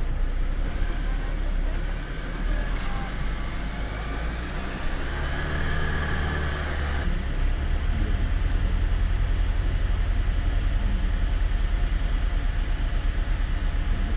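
Jeep Wrangler running off-road, a low engine rumble heard through a camera mounted on the vehicle. About seven seconds in it changes abruptly to a deeper, evenly pulsing drone.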